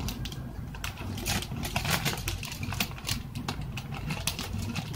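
Light clicks and rustles of paintbrushes and their packaging being handled on a table, scattered irregularly, over a low steady hum.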